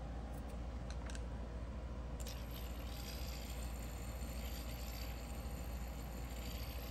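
Copper fidget spinner spinning on a full ceramic bearing, held by its caps: a quiet, steady whir, with two faint clicks in the first second and a thin high whine joining a little over two seconds in.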